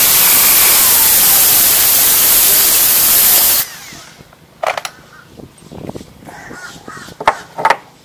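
Power drill with a hole saw cutting through a fibreglass hull to enlarge a through-hull hole: a loud, steady grinding noise that cuts off suddenly about three and a half seconds in. After it, a few short calls, likely crows cawing.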